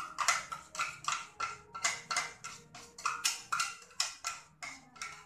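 Seasoning shaken out of a small clear jar over a bowl of raw chicken. The jar is shaken and tapped in a quick, even rhythm of short rattling strokes, about four to five a second.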